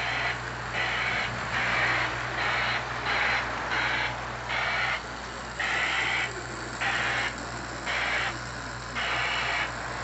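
Simulated steam chuffing from the onboard sound system of a Lionel O-gauge 4-8-4 Northern steam locomotive: a regular beat of hissing chuffs, about one a second, as at slow running speed, over a steady low hum.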